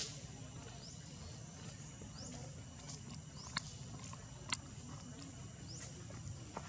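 Outdoor forest ambience: a steady low hum under faint, steady high tones, with short rising chirps every second or so. Three sharp clicks stand out, one at the very start and two more about three and a half and four and a half seconds in.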